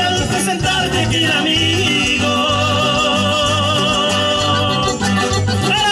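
Live regional Mexican band playing over a steady, repeating bass line, with a long held high note through the middle.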